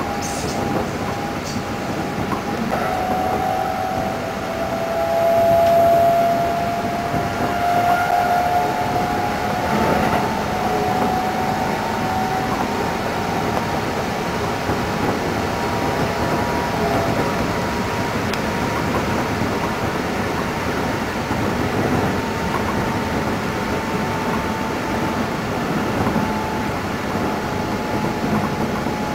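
Keikyu 600 series electric train running, heard from inside the passenger car: a steady rumble of wheels on rail. A few seconds in, a whine rises slowly in pitch and fades out by about ten seconds.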